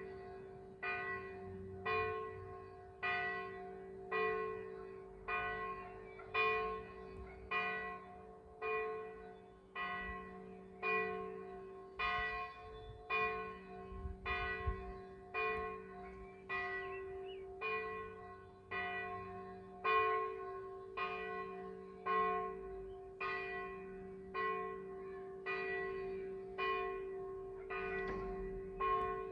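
Church bell ringing with regular strokes about once a second, each stroke ringing on into the next.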